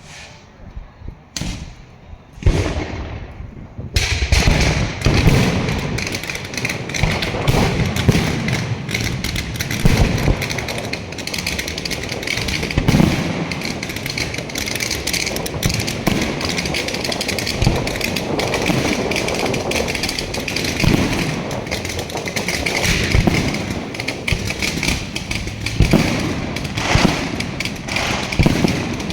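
Fireworks display: two separate bangs, then from about four seconds in a dense, continuous barrage of crackling with frequent booming shell bursts.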